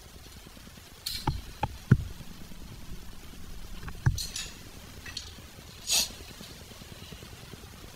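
Metal clinks and knocks from hand tools and parts during work on a dirt bike's brake pedal: a cluster of sharp knocks in the first two seconds, the loudest just before two seconds in, another about four seconds in, and short scraping rustles around four and six seconds.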